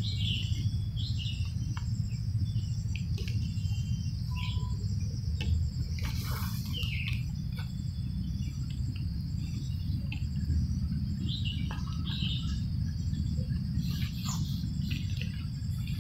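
Outdoor ambience of insects chirping: a steady high trill with a faster regular pulsing chirp above it, and short bird calls now and then, over a steady low rumble.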